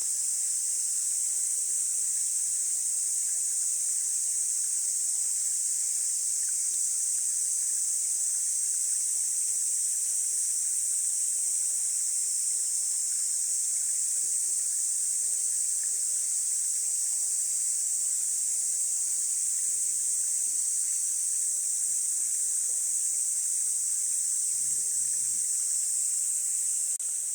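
Steady high-pitched drone of a summer insect chorus, with the faint rush of a mountain stream underneath.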